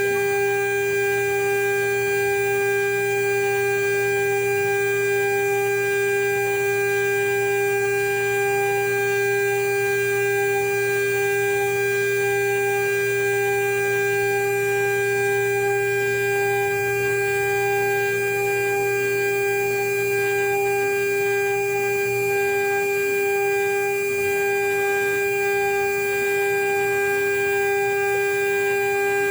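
CNC router spindle running with a steady high-pitched whine while it mills a marine aluminium seal plate. A lower hum underneath stops about three quarters of the way through.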